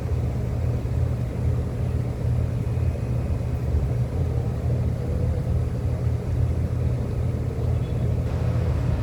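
Steady, loud low-pitched machine rumble with no change in level or pitch.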